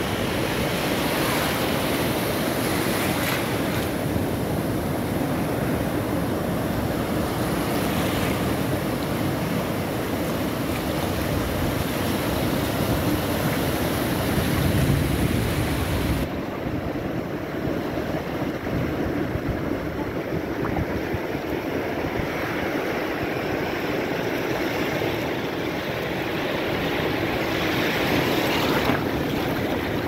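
Sea surf breaking and washing up a sandy shore close by, a continuous rush of water and foam. It swells about halfway through and again near the end. Just after the middle swell the sound turns abruptly duller.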